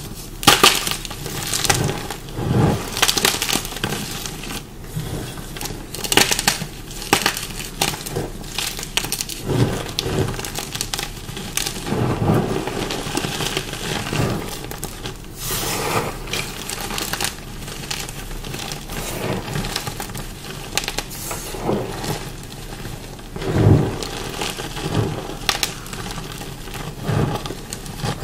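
Dyed chalk blocks being bitten and chewed close to the microphone: a long run of irregular dry crunches and crumbling, with the dye having made the chalk crunchy.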